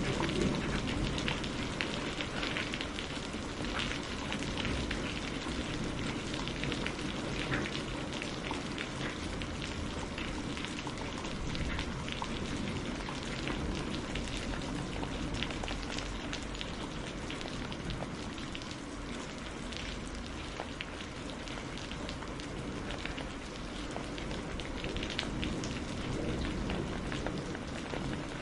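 Steady rain falling, with many separate drops ticking on a hard surface over a continuous hiss.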